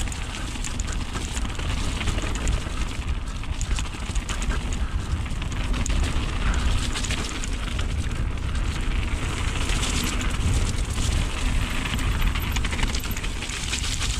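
Mountain bike ridden along a wet trail: wind buffets the camera microphone in a steady low rumble, with tyre noise and many quick clicks and rattles from the bike over rough ground.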